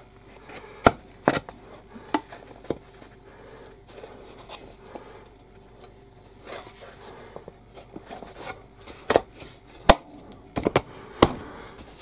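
Fibreboard panels of a hobby workstation module knocking and clicking against each other and the work mat as they are pushed and worked into their slots during a dry fit. Scattered sharp knocks, a few in the first three seconds and louder ones near the end, with quiet rubbing between.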